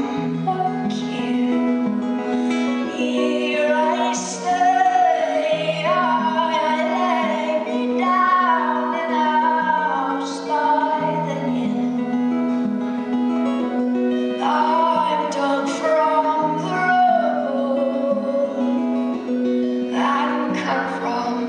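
Live folk song performance: a picked acoustic guitar plays a repeating low note pattern while a woman sings a slow melody over it.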